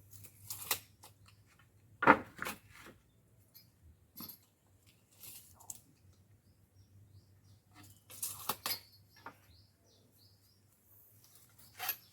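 Scattered knocks, clicks and short scrapes of wood and tools being handled while measuring and marking, the loudest about two seconds in, with a cluster near the end.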